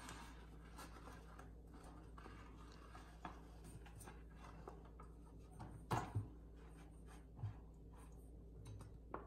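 Faint rubbing and handling sounds of a sheet of rice paper being dipped and turned in a stainless steel bowl of water, over a steady low room hum, with a few soft knocks, the loudest about six seconds in.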